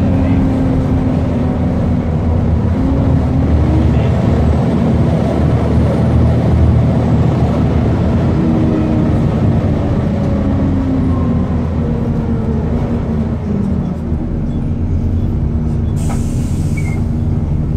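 Volvo B7TL double-decker bus under way, heard from inside the upper deck: the Volvo D7C diesel engine and its cooling fans running with a steady drone, the pitch rising and falling a few times. About 16 s in, as the bus comes to a halt, there is a short hiss of air from the brakes.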